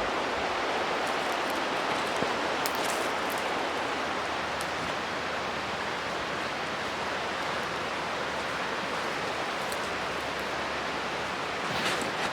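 A fast-flowing river rushing steadily, with a few faint ticks over it.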